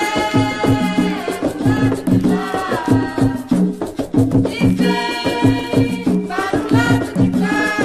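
Umbanda ponto music: hand drums and a rattle keep a steady, driving rhythm under a held melody line.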